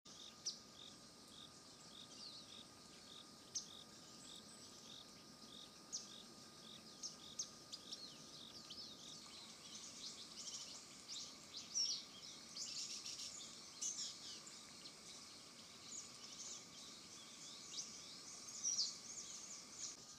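Faint birdsong: many short high-pitched chirps and calls of small birds, busier after about halfway, with a soft note repeating about twice a second through the first half and a faint steady high hum under it.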